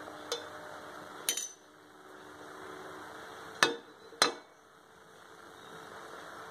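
Sharp metallic clinks on an aluminium pot, four in all, the two loudest close together about three and a half and four seconds in, over a steady low hiss.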